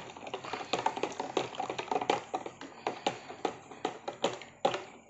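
A spoon clinking and tapping against the inside of a mug as tea is stirred, about four light clinks a second, getting fainter toward the end.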